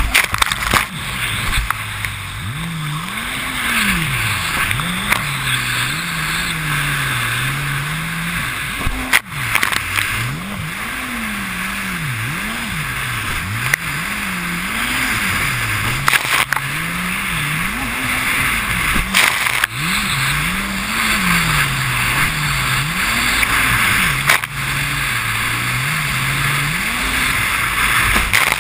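Jet ski engine revving up and down again and again as the craft runs over choppy sea, over a constant rush of water spray and wind. A few sharp thumps come as the hull hits waves.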